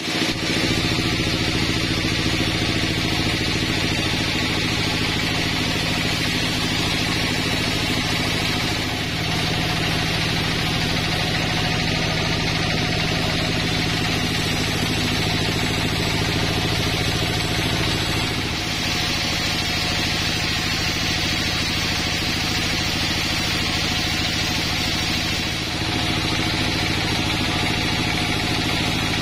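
Sawmill saw running steadily with an even machine hum and the hiss of the blade cutting through a log. The sound dips slightly about 9, 18 and 26 seconds in.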